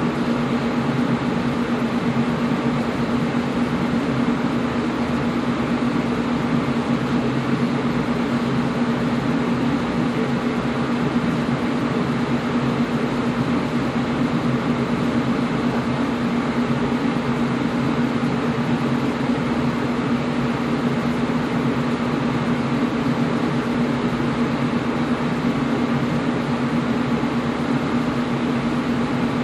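Air conditioner running steadily: an even rushing noise of the fan and airflow with a steady low hum underneath.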